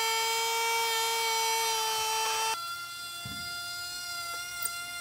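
Electric wood router running at speed, a steady high whine. About two and a half seconds in it switches abruptly to a quieter whine at a different pitch, with a faint knock a little later.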